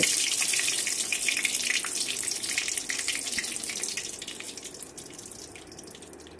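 Whole spices (dried red chillies, bay leaves, cinnamon and cardamom) sizzling and crackling in hot oil in a wok, the tempering for dal. The sizzle gradually dies down.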